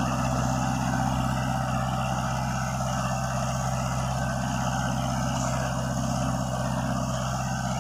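Kubota MU4501 tractor's diesel engine running steadily under load while pulling a 6 ft Shaktiman rotavator through the soil. The engine is not straining, the tractor barely feeling the load, and it runs quietly.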